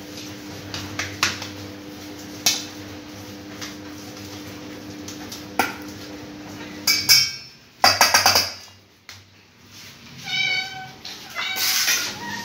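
Metal potato masher clicking and scraping against a stainless steel bowl while mashing soft food, over a steady low hum. Near the end a cat meows twice.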